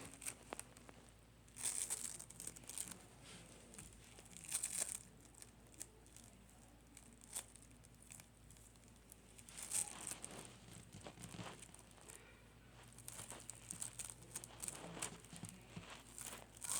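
Slime being squeezed and pulled by hand: crackling and popping in several irregular bursts, with quieter stretches between.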